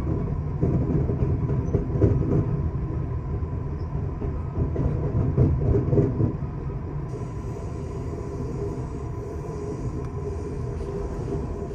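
Amtrak Southwest Chief passenger train rolling across a steel truss bridge, heard from inside the car: a heavy rumble with clattering from the wheels. About six seconds in it settles into a smoother, slightly quieter run as the train comes off the bridge onto land.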